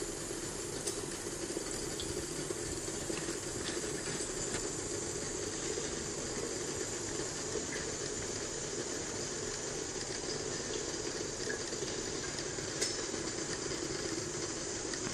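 Home distillation still running, its copper bubble-cap column under heat: a steady hiss with a low hum beneath it and a few faint ticks.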